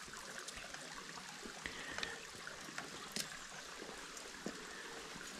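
Faint trickle of running water from a stream, with a few light ticks.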